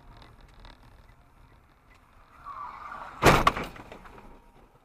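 Car crash: a sudden loud impact about three seconds in, followed by a brief clatter of further strikes, over faint dashcam road noise.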